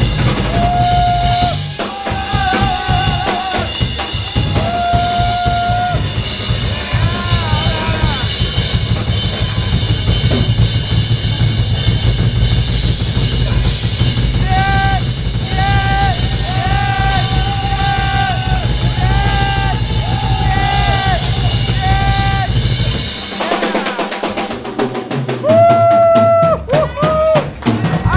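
Rock band playing live, with a drum kit, electric guitars and bass under a held, repeated melody line. About 23 seconds in, the drums and bass drop out for a few seconds, leaving only the high notes before the full band comes back.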